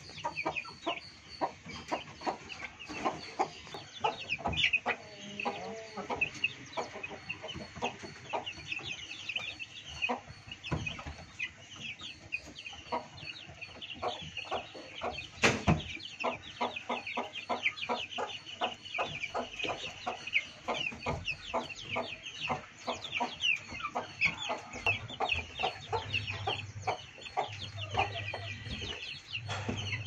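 Country chickens clucking, over a constant stream of quick, high chick peeps. A single sharp click stands out about halfway through.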